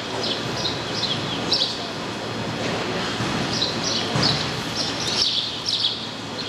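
Small birds chirping in quick clusters of short high notes, over a steady low background noise.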